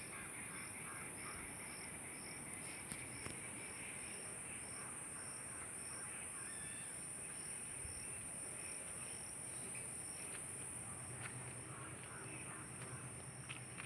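Insects buzzing with a steady, high-pitched drone, over a regular chirp repeating about three times a second. Occasional bird calls come in, mostly in the last few seconds.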